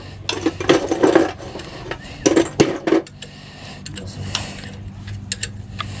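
Metal hand wrenches working on the bolts and valve gear of an Isuzu 4BC2 diesel engine's cylinder head: a few short rasping, scraping strokes in the first half, then scattered light metallic clicks over a steady low hum.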